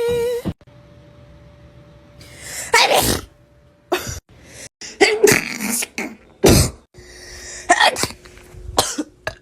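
A person sneezing over and over: about seven sharp sneezes in quick succession, some led in by a rising in-breath, with abrupt breaks between them.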